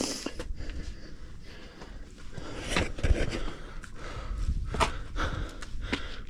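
A hiker's heavy breathing and irregular footsteps and scuffs on rock while climbing a steep scramble.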